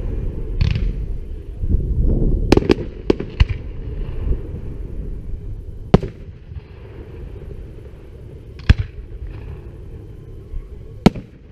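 Aerial firework shells bursting: sharp bangs, a quick cluster of four about two to three seconds in, then single bangs every two to three seconds. A low rumble runs under the first few seconds, with a short hiss near the start.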